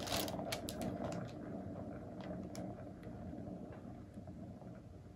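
Hand-spun turntable carrying a paint-covered canvas, its bearing running with a steady mechanical rumble that fades as the spin slows. A few light clicks come in the first second or so.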